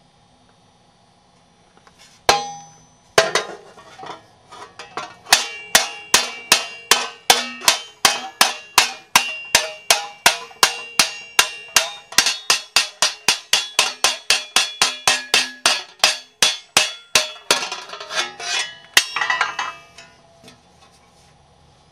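Ball-peen hammer striking sheet metal held over a hole in a steel swage block: a steady run of ringing metal blows, about three or four a second, cold-sinking the sheet into a rounded dish. The blows start with a few scattered strikes and end with a burst of quicker, irregular knocks near the end.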